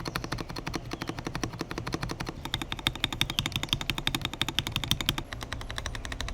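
Fast typing on an Akko 5075B Plus mechanical keyboard: a rapid, dense run of key clacks, about ten a second.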